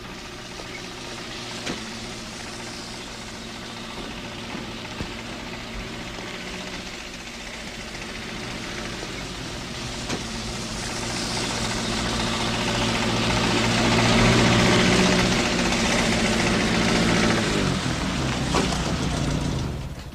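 A truck engine running steadily, growing louder towards the middle, then dropping in pitch near the end before it cuts off.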